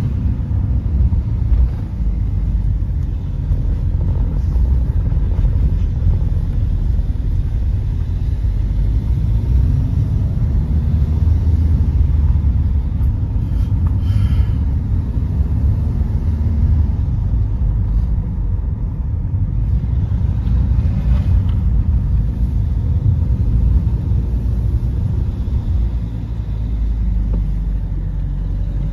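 A car being driven: a steady low rumble of engine and road noise, with a couple of brief hissy swells midway.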